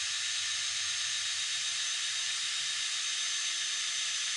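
Power drill running steadily as it drives a winder turning a garage door torsion spring, a continuous hiss with a steady high whine.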